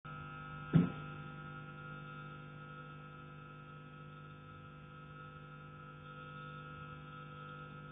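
A single loud knock on a heating pipe about a second in, with a short ring, over a steady electrical hum.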